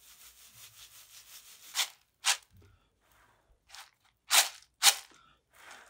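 Roasted peanuts rubbed and tossed in a metal tray to shed their papery skins. A faint, steady rubbing comes first, then several short, sharp rustling swishes.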